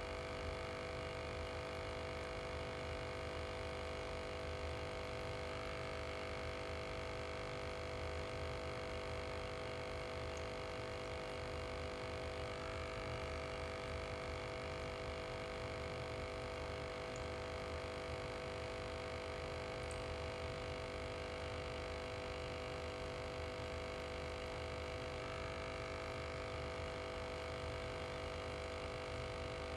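Aquarium air pump humming steadily, an unchanging electrical drone made of several steady tones over a low rumble.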